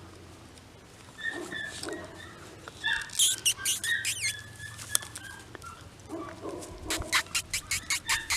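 Nine-week-old Bernese Mountain Dog x Great Pyrenees puppies giving small high-pitched squeaks and whines, with a quick run of short, evenly spaced sounds, about five a second, near the end.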